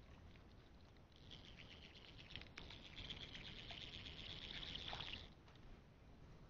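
A faint, high, rapidly pulsing buzz-trill from a calling wild animal. It starts about a second in and holds for about four seconds before stopping abruptly.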